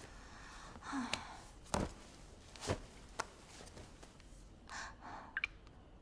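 A woman's nervous breathing and gasps, with a few sharp knocks and thumps between them.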